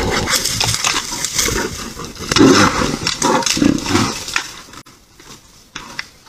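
Bear growling and roaring, loud and rough for about the first four seconds, then dying down near the end.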